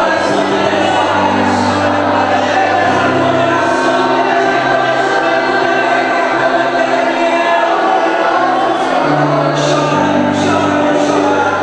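Gospel choir singing with band accompaniment: held bass notes changing every few seconds and cymbal strokes.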